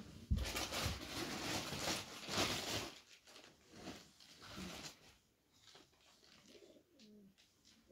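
Plastic bags and cloth rustling as they are picked up and handled, with a couple of dull thumps at the start; the rustling is loudest in the first few seconds, then turns to quieter, scattered rustles.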